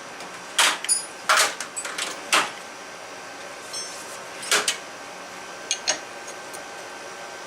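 Metal tools clanking and scraping as a pitman arm puller is handled and fitted. There are about eight separate sharp knocks, bunched in the first two and a half seconds and again around four and a half and six seconds, with a brief metallic ring just before four seconds.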